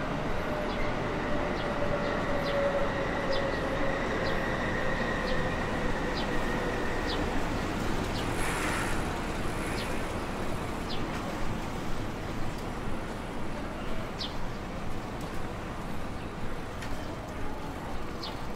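Electric train on the JR Tokaido Line running past, its whine slowly falling in pitch over the first seven seconds or so, with a brief hiss about halfway, over steady street noise.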